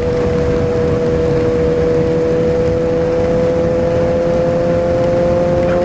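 Suzuki Bandit 650's inline-four engine running under way at a steady cruise, its pitch rising slowly as the bike gathers speed, over a steady rush of wind and road noise.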